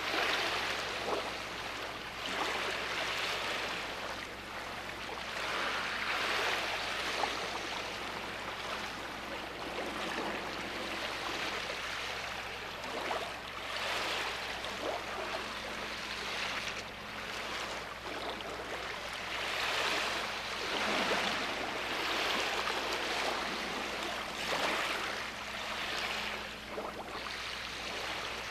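Sea waves washing onto a beach: a continuous hiss of surf that swells and falls back every few seconds.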